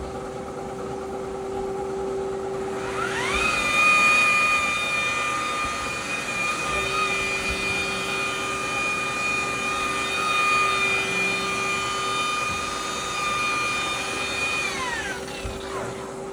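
Electric car buffer running with a wool pad and cutting cream, compounding paint. Its motor whine rises in pitch about three seconds in as it speeds up, holds steady, then falls away near the end as it slows.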